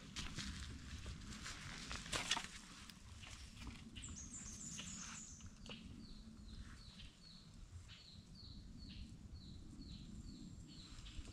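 Footsteps crunching dry leaves and twigs on a forest trail for the first few seconds. About four seconds in, a bird gives a quick run of high falling notes, then repeats a short, lower falling note about twice a second.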